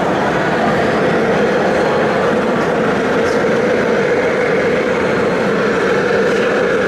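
Steady mechanical running noise with a constant hum, no breaks or changes.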